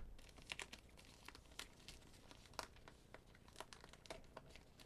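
Faint crinkling of packaging with scattered small clicks and crackles as a card-making kit box is opened with scissors and its contents handled.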